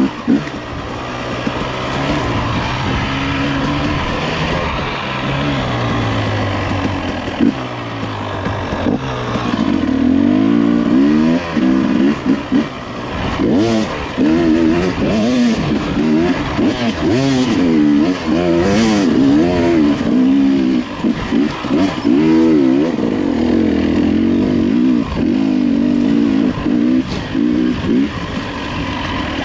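Dirt bike engine being ridden, its pitch rising and falling over and over as the throttle is opened and closed, with a few short clatters around the middle.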